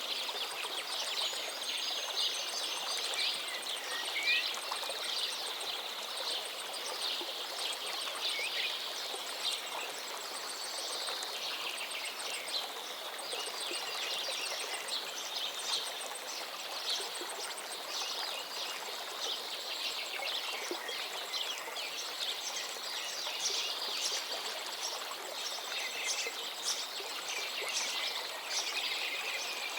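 A river flowing steadily, with many small birds chirping and calling over the water.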